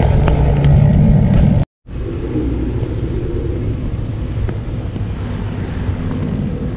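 Road traffic rumble with a motorcycle engine running close by. It cuts out abruptly about a second and a half in, then a steadier, quieter traffic rumble follows.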